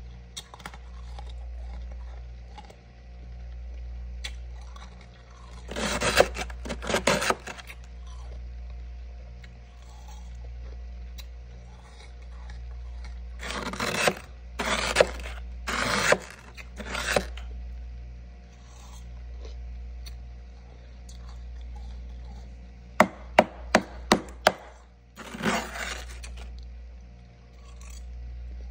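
Spoon scraping packed freezer frost in three bouts of short scrapes, with a few sharp clicks near the end. A steady low hum runs underneath.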